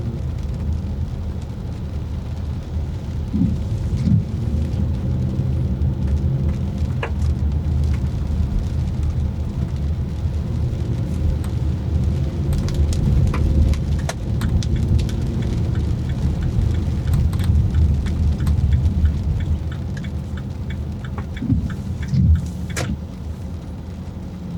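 Car driving in the rain: a steady low rumble of tyres and engine, with many small raindrop ticks hitting the car, thickest in the second half.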